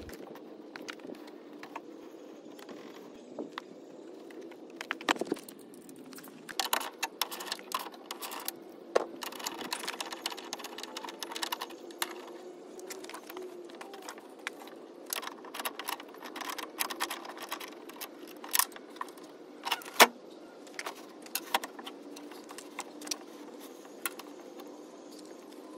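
Irregular metallic clicks and clinks of a socket ratchet and loose bolts being worked inside a car door's sheet-metal shell as the window glass is unbolted from its regulator. The clicks come in clusters, with one sharp knock about 20 seconds in, over a faint steady hum.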